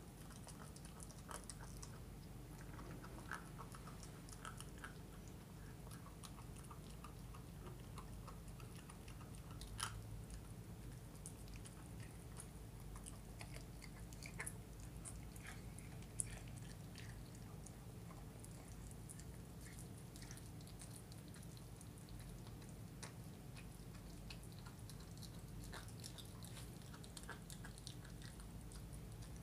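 A puppy chewing and gnawing on a chicken drumstick: faint, irregular small clicks and crunches of teeth on meat and bone, with a couple of sharper crunches about ten and sixteen seconds in.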